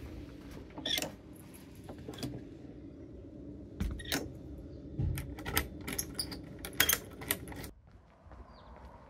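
Metal front door being opened, shut and locked with a key: a series of sharp latch clicks, knocks and key jangles. It cuts off abruptly near the end, leaving a quieter outdoor background.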